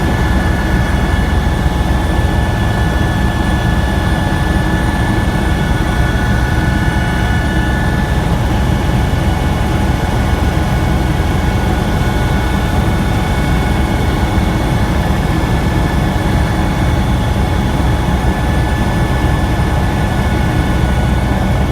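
Helicopter running steadily in flight, heard from on board: a constant dense low noise from the rotor and engine, with a steady high whine on top.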